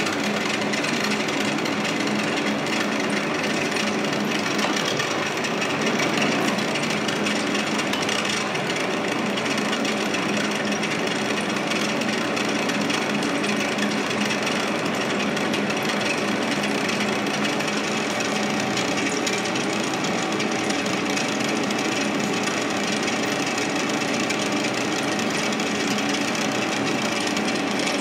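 Monarch engine lathe in low gear taking a heavy roughing cut in 4140 steel with a carbide insert, 0.250 inch deep at 0.021 inch per revolution. The steady cutting noise of the tool shearing metal sits over a steady hum from the machine, with the chips breaking off as it goes.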